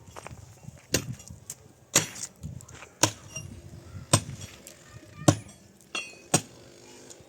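A series of sharp knocks, about six strong strikes roughly a second apart, with fainter ones in between.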